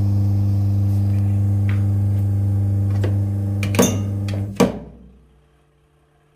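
Semi-automatic washing machine's wash motor running with a steady electric hum, its gearbox faulty. Two sharp clicks come about four seconds in, then the hum dies away to near silence, and it starts up again right at the end.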